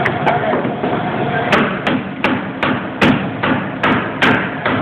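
Hand hammer striking a steel chisel to chip old floor covering off a subway car's floor. Sharp metallic blows come twice near the start, then about three a second from about a second and a half in, over a steady background hum.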